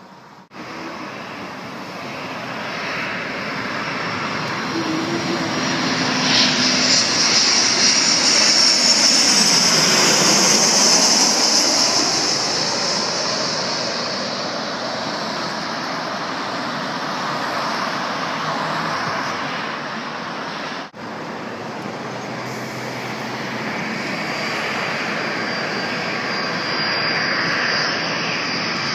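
Twin-engine jet airliner on final approach passing low overhead: the engine noise swells to a peak about ten seconds in, with a high whine that drops in pitch as it passes, then fades. After an abrupt break about two-thirds of the way through, a second airliner is heard approaching, growing louder with a steady high whine.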